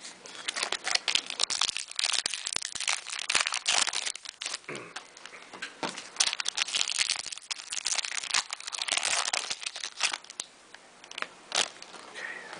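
Foil wrapper of a Topps football card pack crinkling and tearing as it is opened and handled, in dense crackling spells with short lulls about five and ten seconds in.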